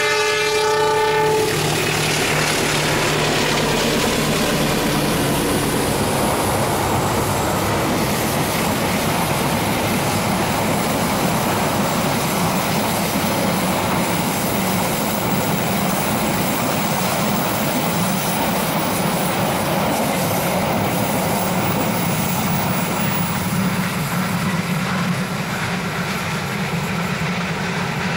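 Indonesian train's horn ending about a second in, then the train passing over the tracks with a loud, steady rumble.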